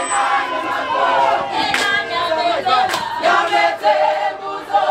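Group of voices singing a Zulu wedding song in chorus, unaccompanied. A couple of sharp hits fall in with the beat partway through.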